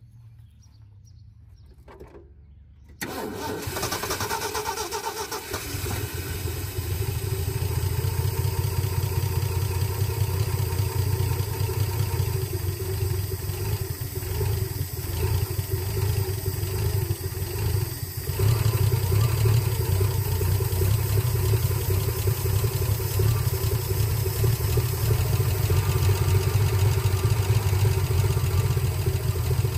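A 1976 Ford F-150's straight-six engine catches and starts about three seconds in, its first start after 22 years sitting, then runs steadily with a low rumble, getting a little louder about halfway through.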